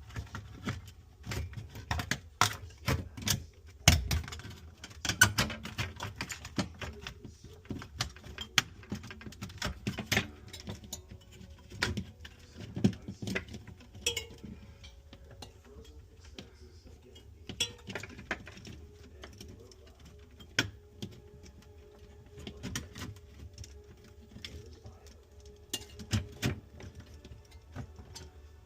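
Irregular clicks, taps and light rattles of small parts and tools being handled during refrigerator repair work, with a faint steady hum coming in about halfway through.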